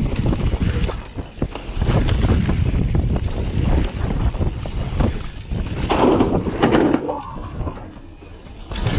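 Full-suspension mountain bike being ridden down a bike-park trail: wind buffeting the microphone over a constant rattle and knocking from the bike and tyres on the dirt, with a harsher rush of noise about six seconds in.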